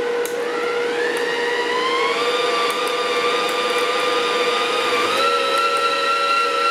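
Stahlwerk MIG 135 welder's wire-feed motor running as the welding wire is fed through the torch hose, with the machine's cooling fan going. The motor's whine rises in pitch over the first couple of seconds, holds steady, and steps up slightly near the end.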